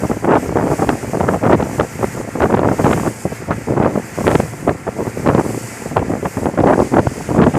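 Wind buffeting the microphone in rapid, irregular gusts.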